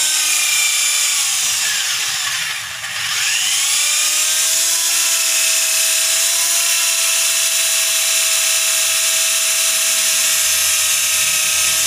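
Electric hand drill running steadily, spinning an engine valve against its seat to lap it in with grinding paste. About three seconds in the motor slows, its whine dropping in pitch, then speeds back up and holds steady.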